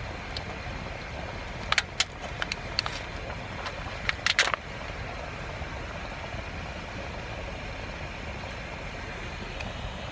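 Close-up chewing of a flaky pastry, with a few sharp crackles about two seconds in and a cluster again about four and a half seconds in, over a steady low rumble inside a car.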